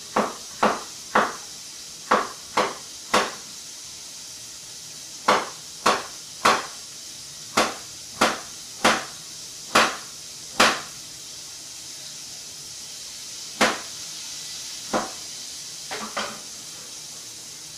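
Kitchen knife chopping carrot on a wooden cutting board: sharp single knocks about every half second, in runs with short pauses between them.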